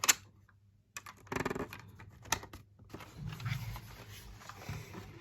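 Clicks and taps on a Logitech K480 Bluetooth keyboard, its keys and controls pressed and the keyboard handled: one sharp click at the start, then a run of irregular taps and rustling.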